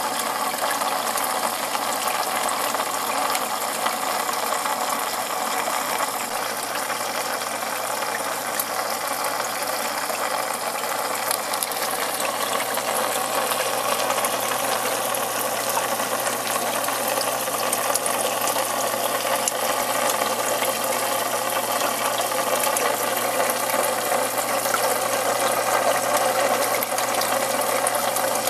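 Steady aquarium water noise with a dense crackle of fine clicks and a faint low hum beneath.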